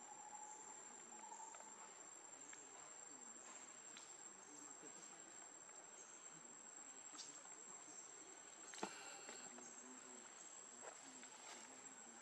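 Faint, steady high-pitched drone of insects, with a few soft scattered clicks and one sharper click about nine seconds in.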